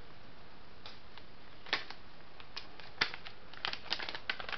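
Thin plastic MRE hot beverage bag being handled and opened out, giving scattered sharp crinkles, a couple of single ones, then a quick cluster near the end.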